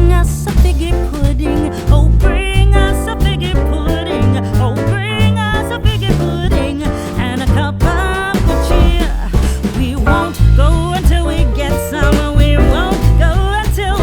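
A song playing: a singing voice over bass and a steady beat.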